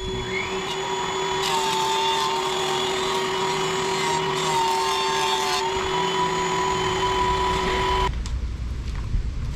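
Power woodworking tool running while edging a maple board. It cuts loudly from about a second and a half in to nearly six seconds, its pitch sagging slightly under load, then runs free and is switched off about eight seconds in.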